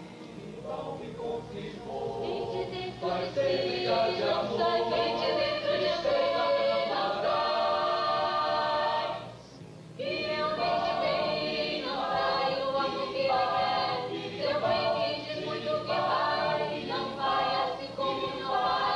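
A choir singing without accompaniment in long held phrases, with a short break about nine and a half seconds in.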